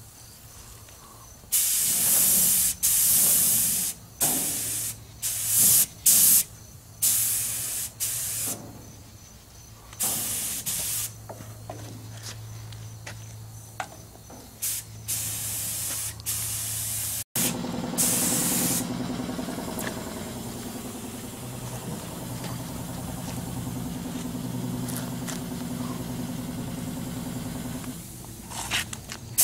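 Compressed-air paint spray gun with a siphon-feed cup hissing as paint is sprayed, in many short blasts as the trigger is pulled and released. Later it turns to a softer, steadier hiss, with a low steady hum underneath.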